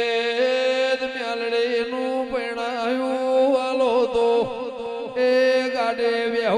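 Male folk singer singing a long, drawn-out melismatic line into a microphone in Gujarati devotional dayro style, holding notes and bending them in ornaments. A new, louder phrase starts about five seconds in.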